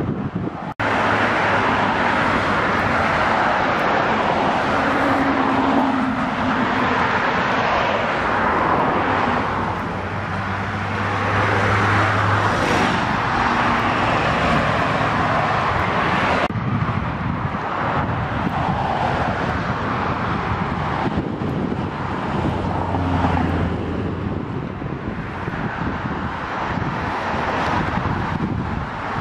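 Steady outdoor road traffic noise from passing cars, with wind on the microphone and low engine hums that swell and fade a few times.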